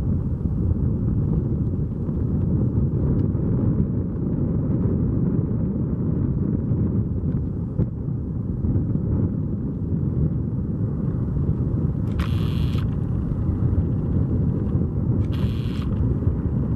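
Steady low rumble of an Airbus A220-100 jet on its landing at the airfield, with two short bursts of hiss about three seconds apart near the end.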